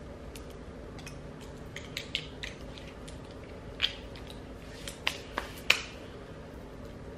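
About a dozen small clicks and taps scattered irregularly, the loudest a sharp click near the end: glass perfume bottles and their caps being handled and set down.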